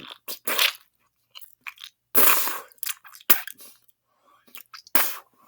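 Wet mouth noises close to the microphone: a string of short spits and smacks of saliva, the loudest about two seconds in and again near the end.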